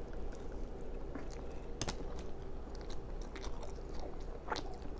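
A person chewing a mouthful of burger and fries with open-mouthed smacking: irregular wet mouth clicks, with one sharper click just before two seconds in.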